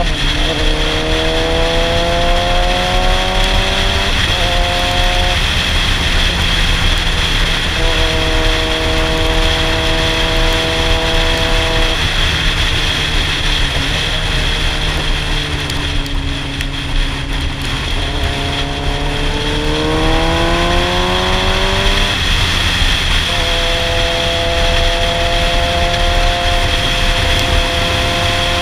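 Sportbike engine under way, its pitch climbing then dropping sharply about four seconds in, holding steady, sinking as the bike slows, then climbing again before another sharp drop and a steady run. Heavy wind rush over the helmet-mounted camera runs under the engine.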